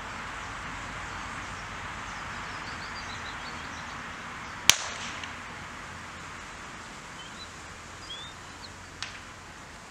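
A single sharp shot about halfway through, with a short echo, fired to mark a dummy thrown for a retriever. Faint bird chirps and a fainter click near the end over steady outdoor background noise.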